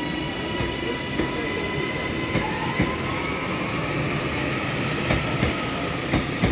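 Northern Class 331 electric multiple unit pulling away: a steady electric whine that starts to rise in pitch a little over two seconds in as the train gathers speed, over a rumble of wheels, with a few sharp clicks from the wheels over rail joints.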